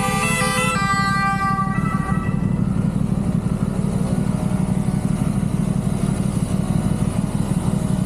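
Aprilia RS660's parallel-twin engine, fitted with a Mivv Delta Race exhaust, idling steadily. At the start an ambulance's siren, stepping between two pitches, passes close by and fades out within about two seconds.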